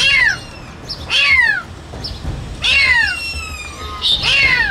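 Kitten meows: four loud, high calls, each falling in pitch, about a second and a half apart.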